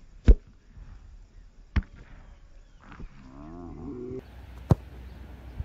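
Football kicked hard, a sharp thud just after the start, then a smaller thump about a second and a half later and another sharp strike near the end. A wavering drawn-out call, about a second long, comes between the second and third hits.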